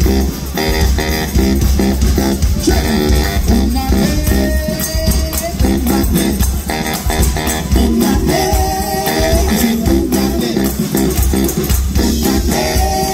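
Live funk band playing loud, with a heavy bass guitar, drums and a shaken tambourine keeping a quick beat, and several long sung notes over the groove.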